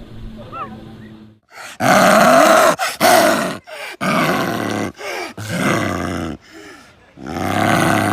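Leopard giving a series of about six loud roars in quick succession, each under a second long, starting about two seconds in after a quieter lead-in.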